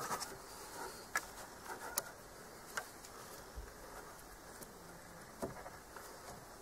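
Quiet handling of a cord as the rope on a bowstring's trucker's hitch is locked off, with a few sharp clicks.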